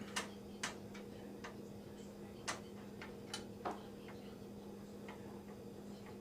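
Irregular light clicks and taps from computer parts and a screw being handled and worked by hand during a PC build, over a steady low hum.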